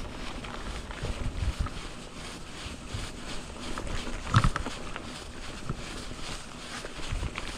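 Giant Talon 3 hardtail mountain bike ridden along a dirt singletrack: tyre noise on the trail with a running rattle of small knocks over bumps, and one sharper knock about halfway through.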